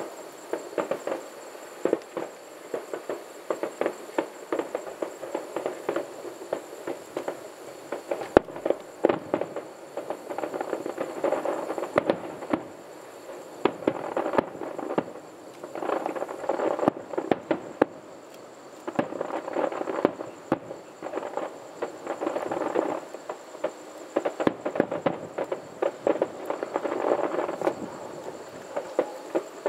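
Aerial fireworks display: a steady stream of sharp pops and crackles with no deep booms, thickening into dense crackling clusters every few seconds.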